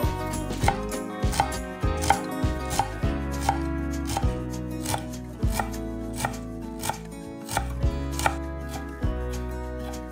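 Knife chopping food on a cutting board: a steady run of strikes, about two a second, over background music.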